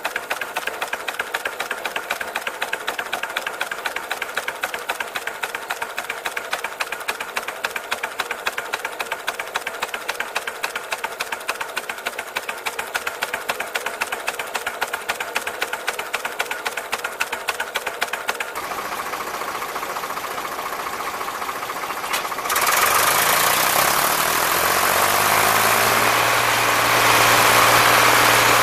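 A miniature steam traction engine running with a quick, even beat of mechanical clatter. About two-thirds of the way through it gives way to a louder vintage tractor engine running, whose pitch slides down and then holds steady.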